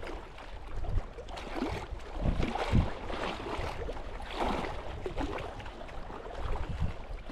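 Wind rumbling on the microphone over a hiss of moving water, with a few soft low thumps about two to three seconds in.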